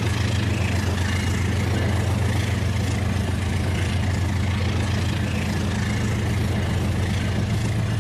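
Rail King toy train running: a steady low hum over an even rushing noise, unchanging throughout.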